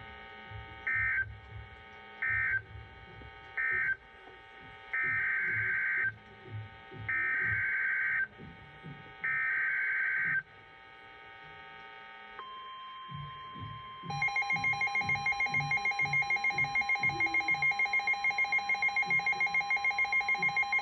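Emergency Alert System SAME data bursts: three short end-of-message bursts about a second apart, then three longer header bursts announcing the next warning. A steady single weather-radio alert tone starts about twelve seconds in. A louder, pulsing two-tone attention signal joins it two seconds later.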